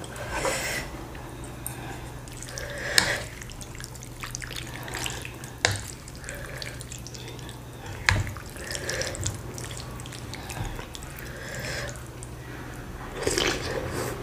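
Wet, close-up eating sounds of noodles being slurped and chewed, with the longest slurp near the end. A few sharp clicks of utensils against the bowl are heard, three of them in the first half.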